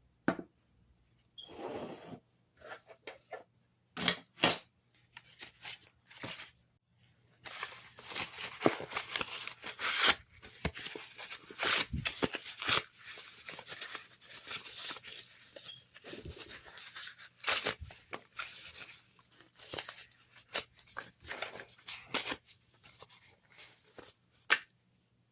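A dog tearing and chewing apart a cardboard cereal box: irregular ripping and crackling of cardboard, some short and sharp, some longer tears.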